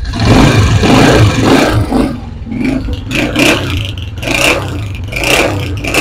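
Honda CG125's single-cylinder four-stroke engine running and revved in several surges, with the tappets freshly set; it runs smoothly.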